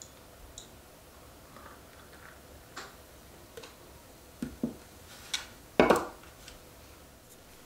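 Beer poured from an aluminium can into a glass, heard as faint trickling and a few small clicks and knocks. About six seconds in, the can is set down on the wooden table with a knock, the loudest sound.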